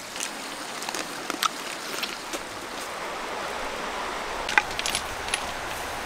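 Shallow river running over stones, a steady rushing. A few sharp clicks sound over it, the loudest about four and a half seconds in.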